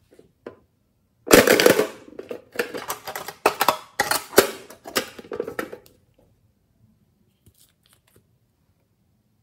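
A hollow plastic storage case handled and opened: a run of loud clicks and rattles for about five seconds, starting a little over a second in, then a few faint ticks.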